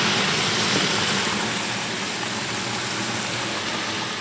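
Battered walleye pieces deep-frying in a basket in an electric deep fryer: the hot oil sizzles and bubbles in a steady hiss that eases off slightly over the few seconds.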